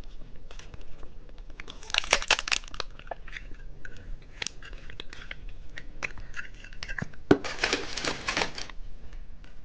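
Candy packaging crinkling and tearing open, with two longer spells of rustling, one about two seconds in and one near the end, and small crackles and clicks between them.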